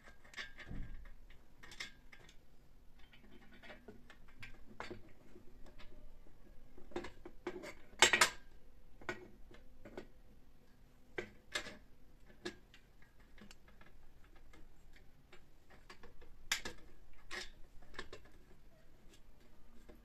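Irregular light clicks and clinks of household items being handled and set down, with one sharper knock about eight seconds in.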